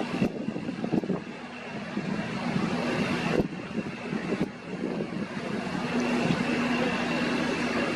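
Wind noise on the microphone over a steady machinery hum from the construction site, with a few sharp clicks.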